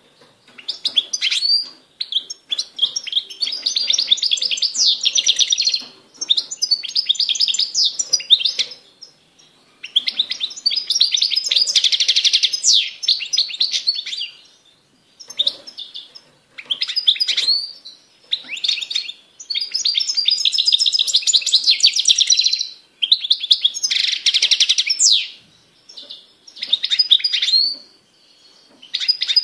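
European goldfinch singing: a run of fast, twittering song phrases made of rapid trills and upswept notes. Each phrase lasts one to four seconds, with short pauses between them.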